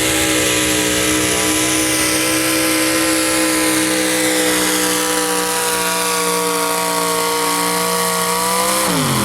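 A pulling truck's engine running at high revs under full throttle, its pitch sinking slowly as it labours, then dropping sharply near the end as the throttle is let off.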